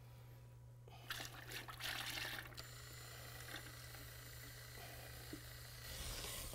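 Liquid polyaspartic coating being poured into a plastic mixing bucket: a soft pouring and trickling sound, loudest about a second in and again near the end.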